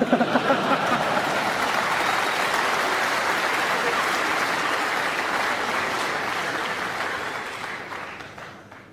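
Arena audience applauding, the clapping steady and then dying away over the last couple of seconds.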